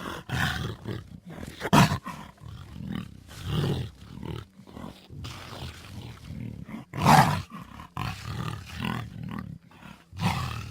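Designed dinosaur sound effects for a Baryonyx: a string of short growls and roars, with louder, harsher roars about two seconds in, about seven seconds in and near the end.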